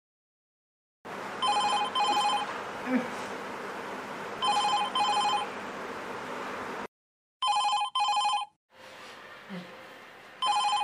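Telephone ringing in a double-ring pattern: two short rings in quick succession, repeated about every three seconds, starting about a second in.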